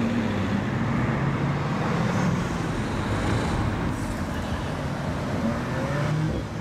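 Bugatti Chiron's quad-turbo W16 engine running at low revs as the car drives slowly through a tight bend, a steady low engine note that eases slightly near the end.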